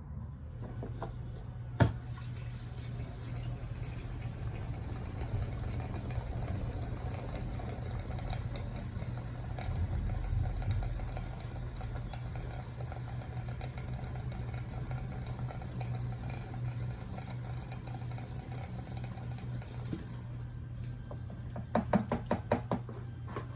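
Gasoline pouring in a steady stream, as old fuel is drained or fresh fuel poured in, starting after a sharp click about two seconds in and stopping near the end. A quick run of clicks follows.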